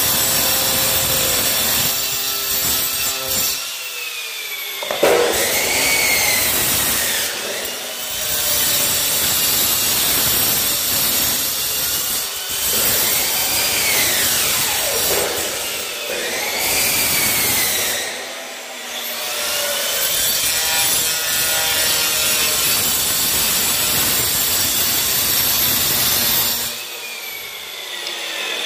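Handheld angle grinder with a thin cutting disc slicing narrow strips off a tile: a loud, continuous cutting screech whose pitch sags and recovers as the disc bites into the tile and is lifted between cuts, about four times. Near the end it keeps spinning free, off the tile.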